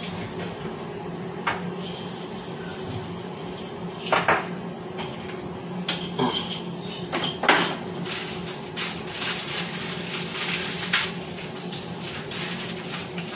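Kitchen dishes and metal utensils clinking and knocking as they are handled: a few separate knocks, then a quicker run of clatter about two-thirds of the way through, over a steady low hum.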